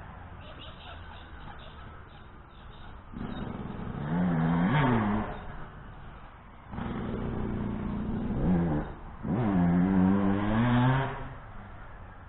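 Yamaha YZ125 125cc single-cylinder two-stroke motocross bike revving hard and backing off around a dirt track. It gets louder twice as it comes near, its pitch climbing and dropping between throttle bursts, and fades near the end.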